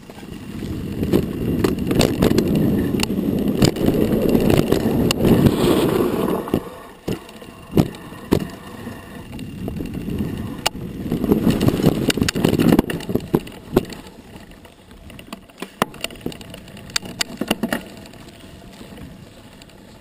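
Mountain bike rolling fast down a dirt trail: wind buffets the handlebar-mounted camera's microphone along with tyre rumble, loud for the first seven seconds and again about eleven to thirteen seconds in. Sharp clicks and rattles from the bike run through it as it goes over bumps.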